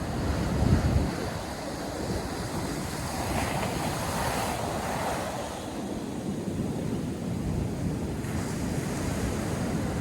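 North Sea surf breaking and washing up a sandy beach, a steady roar of waves that swells about halfway through. Wind buffets the microphone, strongest about a second in.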